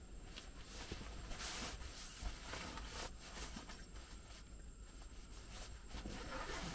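Irregular rustling and scraping, as of things being handled and rubbed against each other, in short uneven strokes.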